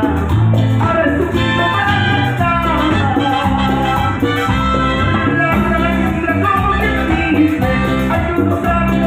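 A live salsa orchestra playing at full volume through a stage sound system. Horn lines ride over a steady groove from bass, congas, timbales and drum kit.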